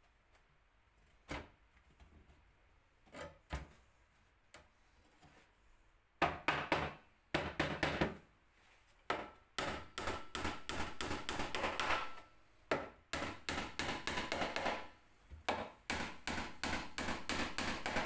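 Hand work on wood: a few separate knocks, then from about six seconds in, long runs of quick repeated strokes on wood.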